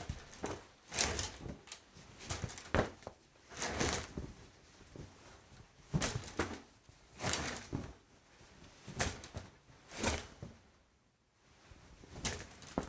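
Shower curtain pulled along its rod, then a towel rubbed over the body: a string of dry cloth swishes and scrapes, roughly one a second, with short pauses between strokes.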